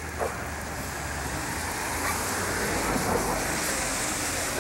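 Steady hiss of street traffic with a low rumble underneath.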